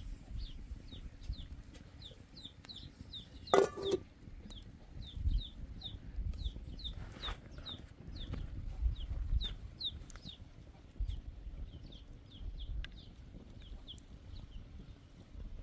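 Chickens: a steady run of short, high peeps that drop in pitch, two or three a second, with one louder short call about three and a half seconds in.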